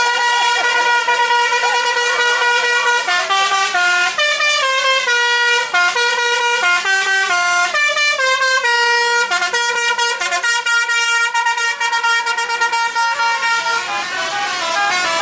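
Indonesian 'telolet' bus horn, a basuri-style multi-trumpet horn, playing a tune. It holds one loud note for about three seconds, then runs through a quick melody of stepped notes.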